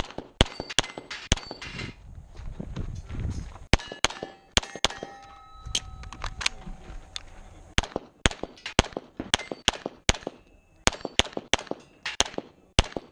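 Semi-automatic pistol firing quick strings of shots at steel targets, the plates clanging and ringing on hits. The shooting thins out about halfway through, with a few rings hanging on, while the pistol is reloaded.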